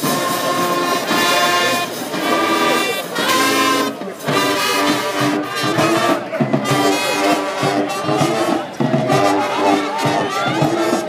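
High school marching band's brass section playing loud held chords in short phrases, with brief breaks between them.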